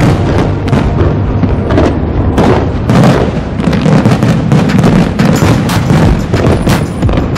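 Fireworks display: a dense, unbroken run of shells bursting, with bangs and crackles following one another several times a second.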